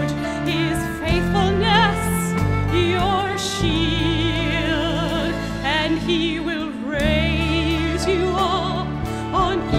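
A classical soprano singing with a wide, even vibrato, phrase after phrase, over an accompaniment of held low chords that change every few seconds.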